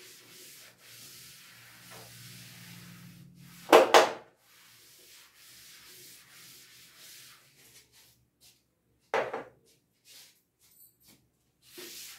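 Board duster rubbing across a chalkboard, wiping off chalk writing, faint through the first half. A loud double thump comes about four seconds in and another about nine seconds in.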